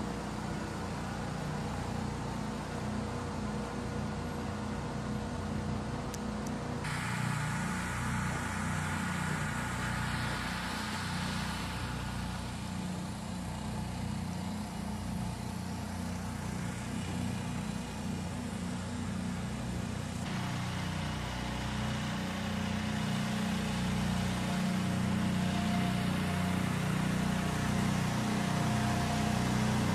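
An engine runs with a steady drone; the hiss above it steps up about seven seconds in and drops back about twenty seconds in.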